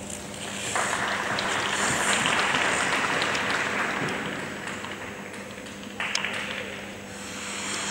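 Audience applauding, starting suddenly about a second in and dying away, then a second, shorter burst of clapping about six seconds in.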